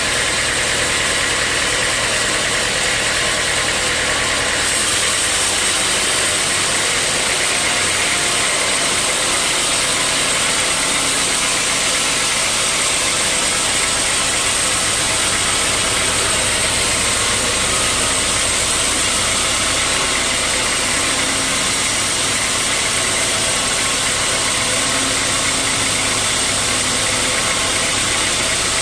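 Sawmill machinery running with a steady, loud mechanical noise. The sound changes abruptly about five seconds in.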